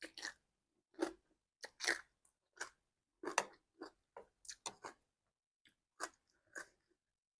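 A person chewing and crunching food in irregular short bites, roughly two a second, with a brief pause about five seconds in.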